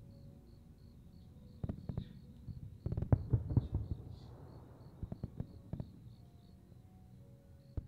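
Aerial fireworks bursting: a few scattered bangs and crackling clusters, the loudest group about three seconds in, with single bursts near the end. Crickets chirp in a steady, even pulse beneath.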